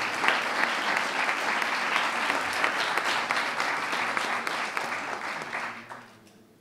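Audience applauding, a steady round of clapping that fades out about six seconds in.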